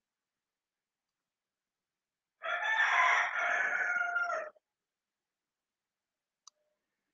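One long animal call of about two seconds, starting a couple of seconds in and stopping abruptly, followed by a faint click.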